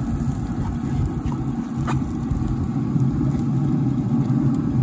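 Steady low rumble and hum of a running Traeger pellet grill, with one sharp click about two seconds in as metal tongs touch the grate.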